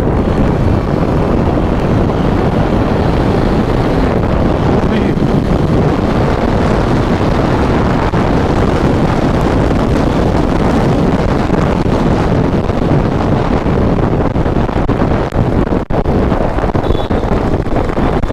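Heavy wind noise on the microphone at speed, over the engine of a single-cylinder KTM motorcycle pulled hard up to about 99 km/h. There is a short break in the sound about 16 s in, and the bike eases off near the end.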